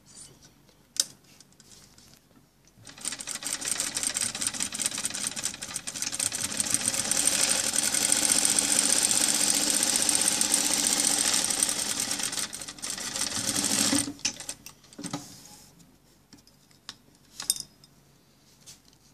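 Sewing machine stitching a welt-pocket strip onto jacket fabric. It runs for about eleven seconds, starting a few seconds in, getting louder in the middle and stopping abruptly. A few clicks and taps come before and after it.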